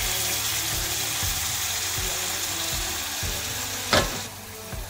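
Hot stock poured through a mesh strainer into a pan of sautéed chicken, a steady pouring and sizzling hiss. A single sharp knock about four seconds in, after which the hiss dies down.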